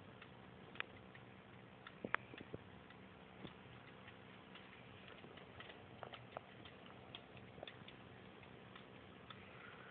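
Faint, irregular clicks and taps of kittens playing on carpet with a wand toy, over a low steady hum; the loudest cluster comes about two seconds in.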